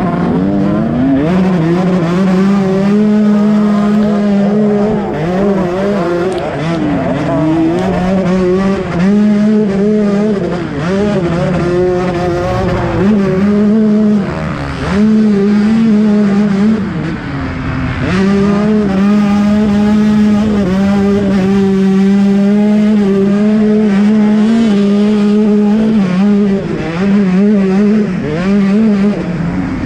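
KTM 125 SX two-stroke motocross engine running hard under a rider on the track, its pitch holding steady and then dropping and climbing again several times as the throttle is chopped and reopened. The owner is testing the bike for a misfire and bog.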